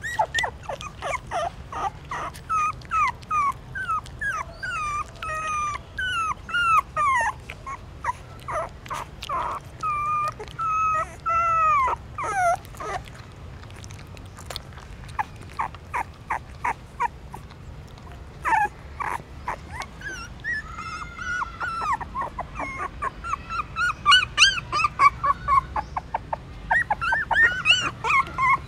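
Newborn puppies whimpering while nursing: many short, high cries that bend in pitch, coming in quick clusters, with a quieter stretch of a few seconds in the middle.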